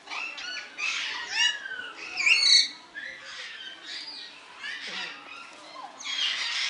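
Many birds calling at once, with overlapping squawks and chirps; the loudest is a shrill call about two and a half seconds in.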